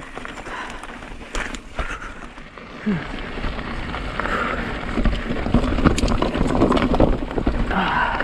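Mountain bike riding over a rocky, loose trail: tyres crunching on rock and dirt and the bike rattling with many sharp knocks, getting louder about halfway through.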